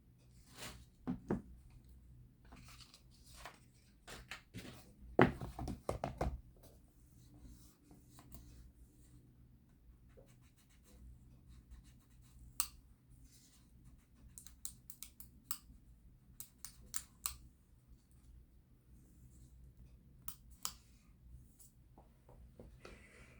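Hands handling packaging and a phone: scratchy rustling with light clicks and taps, and a burst of louder knocks and rustling about five seconds in.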